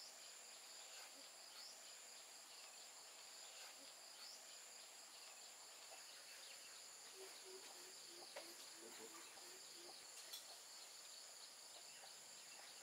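Faint outdoor insect chorus, a steady high-pitched buzz of crickets or similar insects, with a few soft clicks and a brief run of short low notes about seven seconds in.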